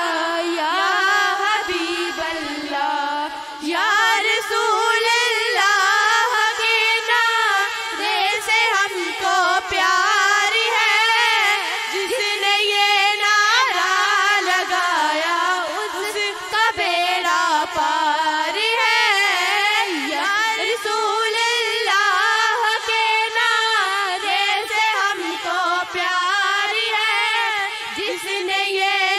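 A single high voice singing a naat, a devotional song in praise of the Prophet, in a slow, ornamented melody whose pitch wavers and glides, with brief pauses for breath.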